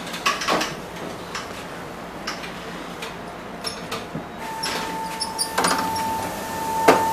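Footsteps and light knocks in a commuter train's vestibule, then a steady electronic beep from the train's door warning starting a little past halfway, with two sharp knocks near the end.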